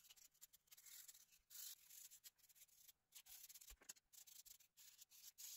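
Near silence with faint, irregular scratchy rubbing from disassembled phone parts being cleaned.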